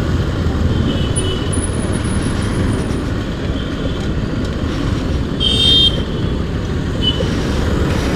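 City traffic heard from a moving Bajaj Pulsar NS motorcycle: a steady low wind-and-road rumble, with one short vehicle horn toot a little past halfway.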